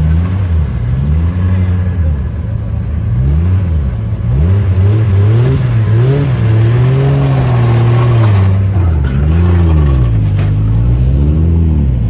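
A car engine being revved repeatedly, its pitch climbing and dropping seven or eight times, with one longer, held rev in the middle.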